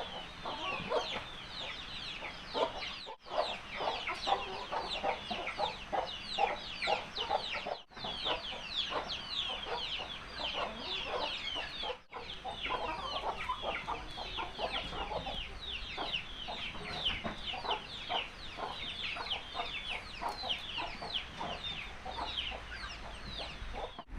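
Chickens calling: a dense, overlapping stream of short, high calls, each falling in pitch. The sound breaks off briefly three times.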